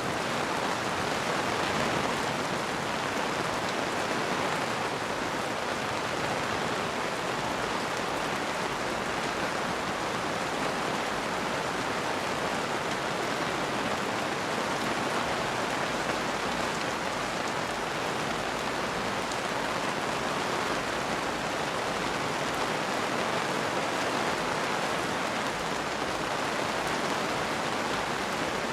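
Steady, even rain falling on a surface.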